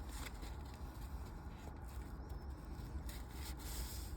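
Faint handling of climbing hardware, the swivel, carabiner and lanyard: soft rubs and a few light clicks over a steady low hum.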